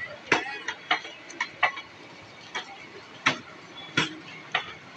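Passenger coaches of an express train rolling past, their wheels clacking over the rail joints in sharp, irregular knocks, about two a second.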